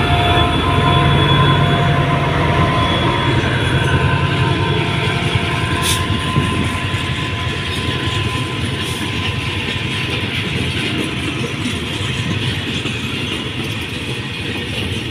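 State Railway of Thailand QSY-class diesel locomotive and a train of empty flat wagons rolling past: engine running and steel wheels rumbling over the rails, with thin high tones over the rumble in the first few seconds. The sound eases slowly as the train draws away.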